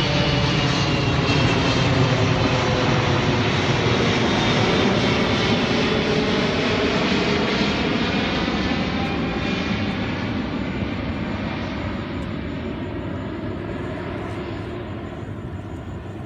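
Jet engine noise from a Boeing 777F's GE90 turbofans, loud and even, with faint wavering tones in it. It fades steadily over the last several seconds.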